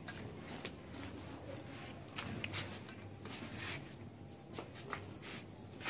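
Hands squishing and turning marinated chicken pieces in a steel bowl: faint, soft wet rubbing sounds now and then.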